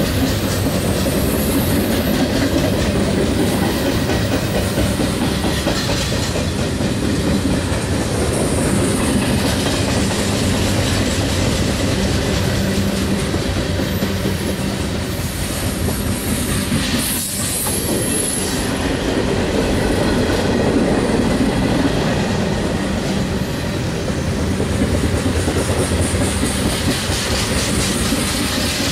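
Train cars rolling past steadily, wheels clicking over the rail joints, with a few short high-pitched wheel squeals.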